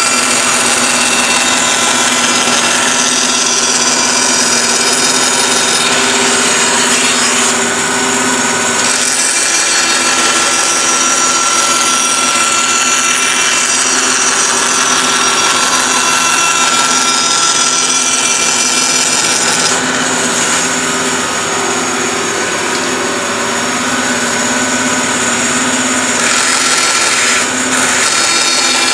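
Power tool running steadily while cutting wood, with small dips in level a few times.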